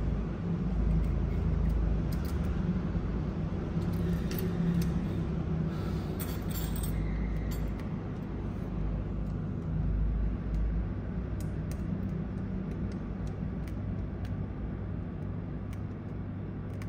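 Steady low background hum with scattered light clicks and clinks of small tools and parts being handled at a repair bench, most of them in the first half.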